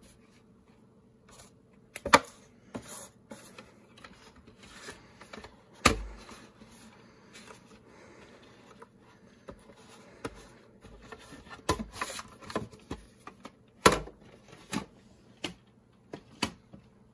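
VHS tape cassettes in their cases handled and set down on a desk: scattered clicks and knocks, the loudest about two, six and fourteen seconds in, with light scraping and rustling between them.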